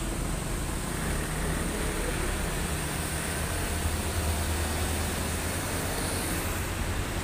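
Diesel trucks passing close by on a road: a steady low engine rumble mixed with tyre and road noise. It swells a little in the middle as a container truck goes by.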